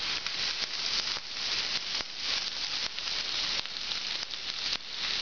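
Shrimp searing in a very hot cast iron pan (about 580 °F): a steady, even sizzle with a few faint crackles.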